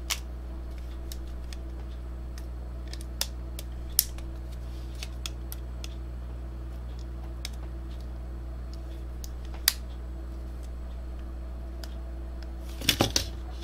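Scattered small clicks and taps of plastic and metal DVD drive parts being handled and fitted together, with a quick run of clicks near the end, over a steady low hum.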